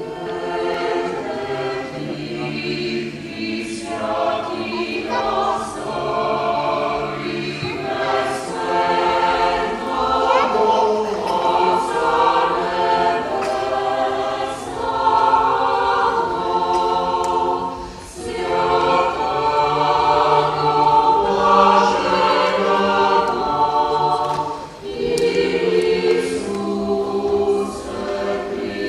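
Mixed choir of men's and women's voices singing sustained chords in harmony, with two short breaks between phrases, about two-thirds of the way through and near the end.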